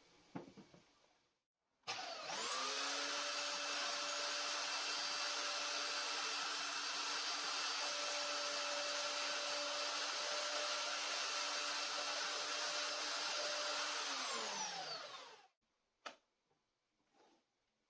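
Belt sander switched on and running steadily while a small wood block is sanded on its belt, then switched off, its pitch falling as it winds down near the end. A couple of light clicks follow.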